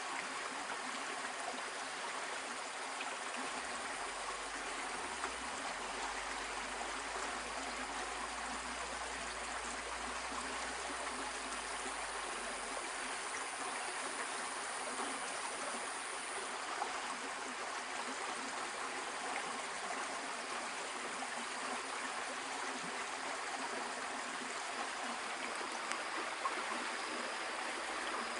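Stream water flowing steadily over rocks.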